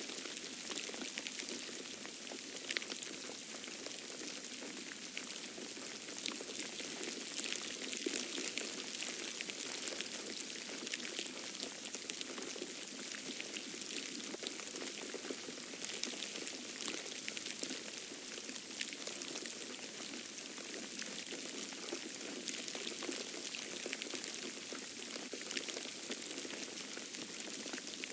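Falling snow pattering steadily: a dense crackle of fine irregular ticks over a soft hiss.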